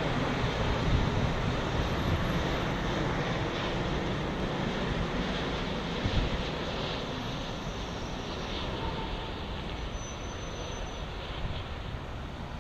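Boeing 787 jet airliner passing low on final approach to touchdown: a steady engine rumble and rushing noise, slowly fading.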